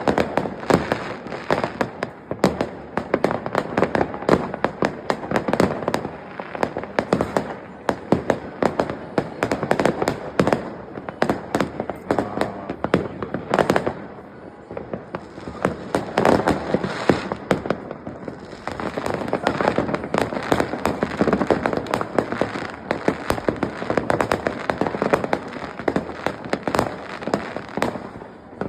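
Many fireworks and firecrackers going off at once: a dense run of bangs and crackles that thins out briefly about halfway through.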